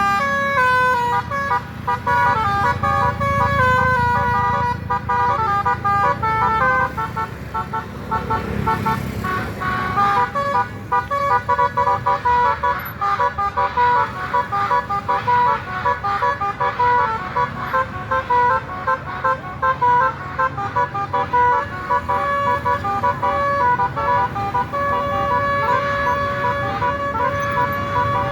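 Bus 'telolet' horn, a multi-tone air horn, playing a quick melody of short stepped notes over engine rumble; near the end it holds one steady note.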